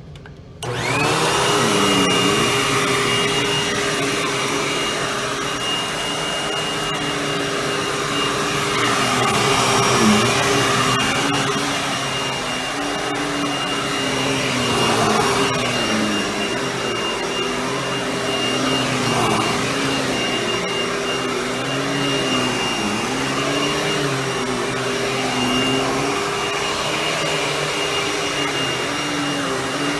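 Hoover WindTunnel Anniversary Edition bagless upright vacuum switched on a little under a second in, its motor spinning up to a steady whine and running on. A lower hum wavers up and down in pitch every second or two.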